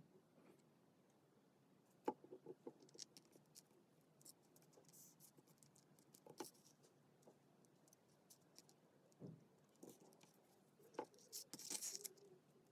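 Faint paper-crafting handling sounds: scattered light taps and clicks of paper and tools on a desk, with a brief rustle of paper near the end.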